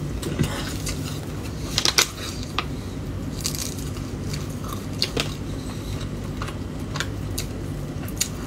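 A person biting into and chewing fried tofu snacks, with scattered short crisp clicks and crackles over a steady low hum.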